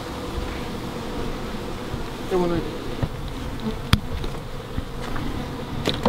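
A swarm of honeybees buzzing steadily around their hives, with a single sharp click about four seconds in.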